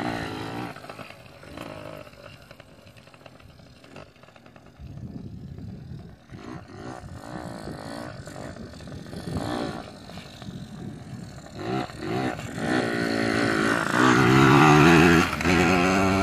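Yamaha PW80 youth dirt bike's small two-stroke single-cylinder engine being ridden, its pitch rising and falling as the throttle is opened and closed. It gets louder toward the end, loudest a second or two before the end as the bike comes close, then drops away.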